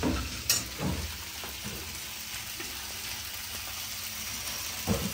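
Food frying in hot oil in a pan: a steady sizzling hiss, with a sharp knock about half a second in and a few soft thumps.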